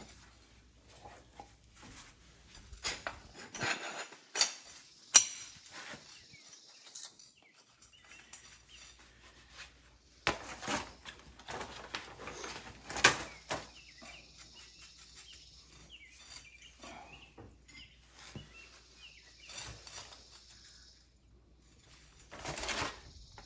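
Intermittent metallic clinks and knocks of skid steer undercarriage rollers and parts being handled and set down during inspection, with the loudest knocks about 4 to 5 seconds in and around 10 to 13 seconds in.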